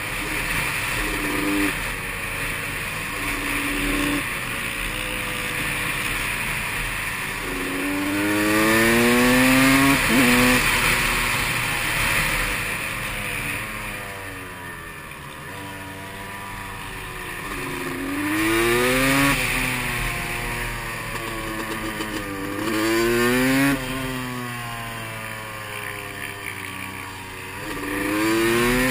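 Supermoto motorcycle engine under hard riding, accelerating again and again: its pitch climbs in rising sweeps, then drops away as the throttle closes, several times over. Heard from the rider's own bike at close range.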